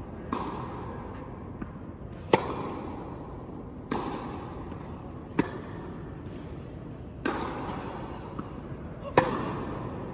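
Tennis ball struck by rackets in a baseline rally, sharp pops about every one and a half to two seconds, louder and softer hits alternating, each ringing out in the echo of a large indoor hall.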